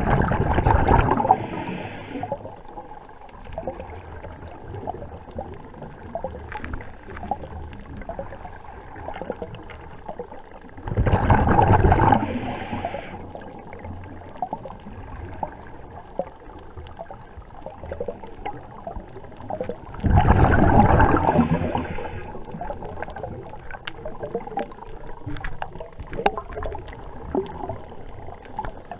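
Scuba diver's regulator exhalation heard underwater: three rushing gurgles of bubbles, each about two seconds long and about ten seconds apart. Between them there is a steady crackle of small clicks.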